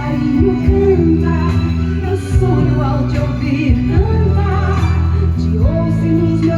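A song playing, with a singing voice over held chords and a bass line.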